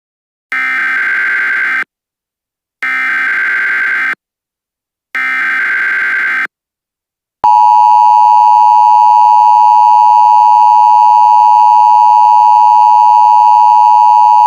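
Emergency Alert System header: three short bursts of warbling digital data tones, each about a second long, then the loud, steady two-tone attention signal starts about halfway through and holds.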